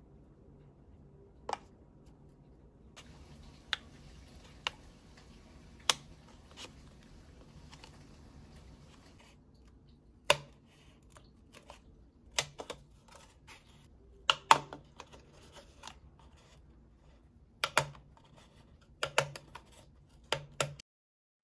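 Small scissors snipping through a paper cup, in short, sharp cuts a second or two apart, some in quick pairs.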